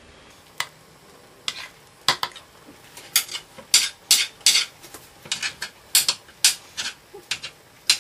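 Knife chopping cooked chicken on a cutting board: a run of sharp, irregular knocks, sparse at first, then quicker at about three a second.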